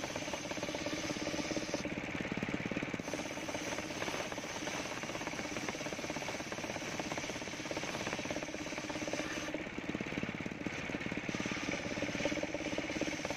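Large circular saw blade of a homemade sawmill ripping a coconut-wood log lengthwise into a beam: a steady, coarse machine noise. Its higher hiss eases briefly twice, about two seconds in and again about ten seconds in.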